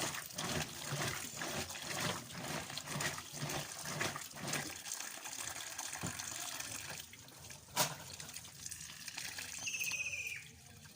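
Washing machine filling with water: water runs into the tub with a rhythmic sloshing that fades about halfway through. There is a single sharp click about eight seconds in and a short high chirp near the end.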